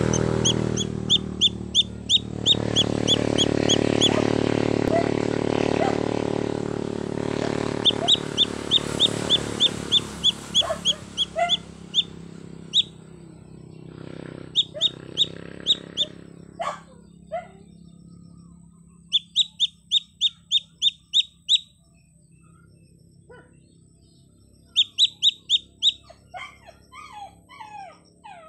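Baby chicken chick giving loud, high distress peeps in quick runs of about five a second, bouts of a couple of seconds broken by pauses: the calling of a chick separated from its mother hen. A low rumble lies under the first twelve seconds.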